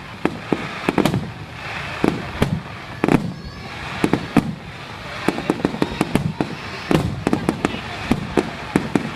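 Aerial fireworks display: shells bursting in deep booms, mixed with many sharp, irregular cracks and crackles from the bursts overhead.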